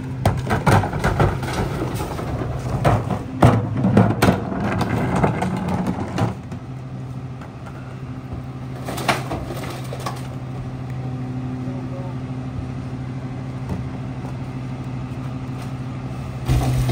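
Diesel engine of a Freightliner M2 rear-loader garbage truck idling steadily. Over the first six seconds, bangs and knocks come from a plastic bin and cardboard being tipped into the McNeilus hopper. The engine drone then runs on alone and gets louder near the end.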